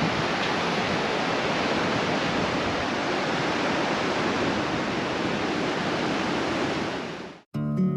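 Steady rush of the Imja Khola river's fast glacial water, which fades out near the end as guitar music starts.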